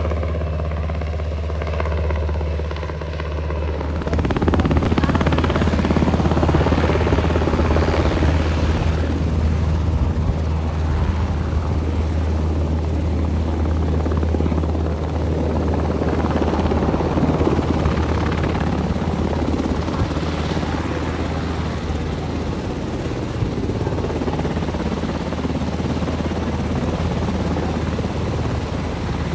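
UH-60 Black Hawk military helicopter hovering low: steady, loud rotor and turbine noise with a strong low rumble. It comes in abruptly about four seconds in, after a steadier, quieter hum.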